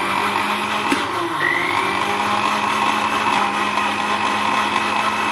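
Electric kitchen blender motor running at full speed, blending milk with sugar. Its whine rises as it spins up, drops briefly about a second in, then rises again and holds steady.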